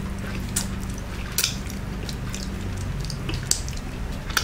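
Wet mouth sounds of a person eating rice and saucy pork by hand: chewing, with a few sharp lip smacks, and a finger sucked clean near the end. A steady low hum runs underneath.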